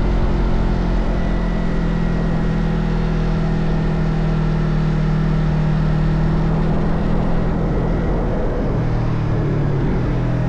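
Motorcycle engine running at steady cruising revs under a rush of wind noise; about eight and a half seconds in, the engine note drops to a lower pitch.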